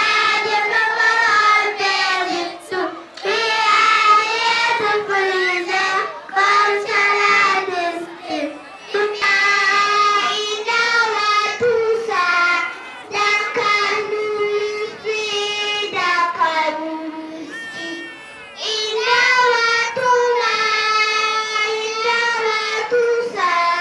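Children singing into a microphone, in sung phrases with short breaks between them.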